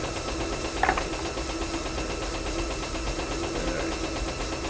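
Steady workshop hum with faint handling of small metal parts as a small screwdriver tightens the cable clamp screw on a compression-release lever; one short sharp tick about a second in.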